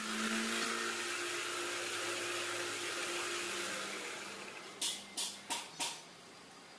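Cylinder boring machine running with a steady hissing noise while boring a motorcycle cylinder, winding down about four seconds in. Near the end come five sharp metallic clicks, about three a second.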